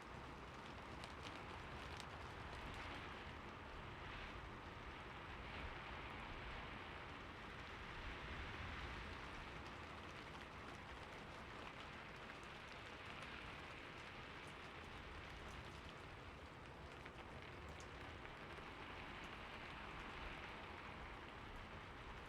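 Heavy rain falling steadily: an even hiss with scattered sharper drop ticks.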